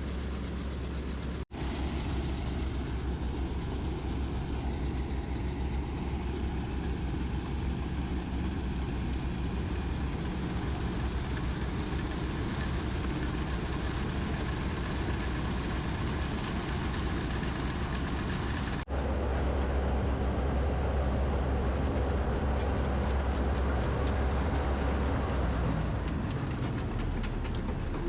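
The 102 HP diesel engine of a PREET 4949 combine harvester running steadily with a deep rumble. The sound cuts out for a split second twice, about a second and a half in and again after about nineteen seconds, and after the second break it runs a little louder and deeper.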